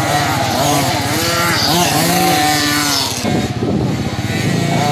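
Several 50cc two-stroke automatic youth motocross bikes racing, their engines revving up and down over one another, the pitch rising and falling as each rider opens and closes the throttle through the bend.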